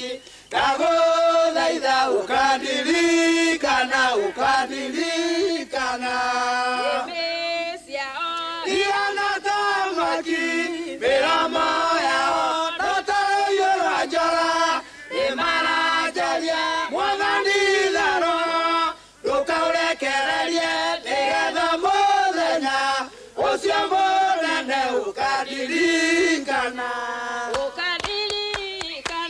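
A choir singing a Kikuyu gospel song. The voices sing together in phrases broken by short pauses.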